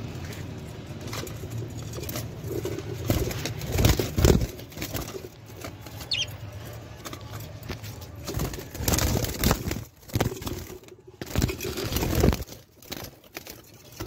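Budgerigars flapping their wings in several short flurries inside their cage, birds that seem to have taken fright. One brief chirp comes about six seconds in.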